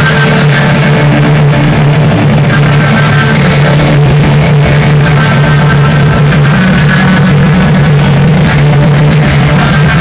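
Heavy rock band playing live at very high volume, with distorted electric guitars and drums, recorded on a phone microphone that overloads, so the sound is harsh and clipped.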